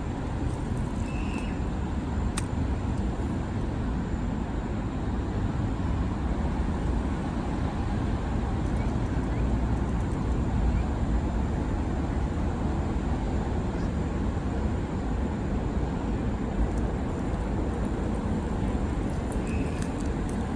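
Steady low rumble of road traffic, with two faint high chirps, one near the start and one near the end.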